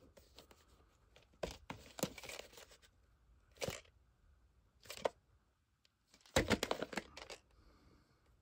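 Cardboard VHS slipcase handled and turned over in the hand: several short scuffs and rustles of the sleeve rubbing against fingers, the longest cluster about two-thirds of the way through.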